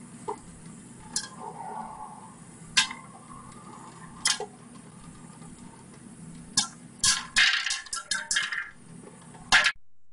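Glass bowl clinking against the metal pan beneath it as a cat paws at it: a few single sharp clinks, then a quick flurry of clinks and rattles near the end, over a faint steady hum. It cuts off suddenly shortly before the end.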